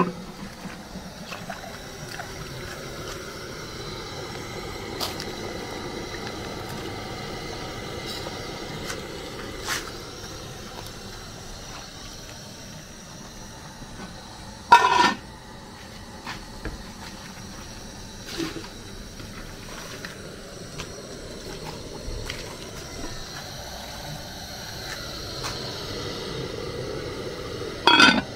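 Cooking pot bubbling and hissing steadily on the heat, with a few sharp knocks of a utensil against it, the loudest about halfway through and another near the end.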